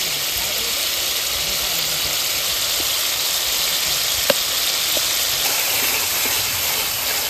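Spice paste sizzling steadily in hot oil in a kadai as it is fried down with kasundi mustard, with a single sharp tap about four seconds in.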